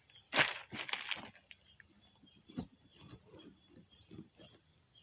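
Steady high chirring of crickets and other insects, with rustling and crunching of leaves and twigs, loudest about half a second in, and a few short falling chirps.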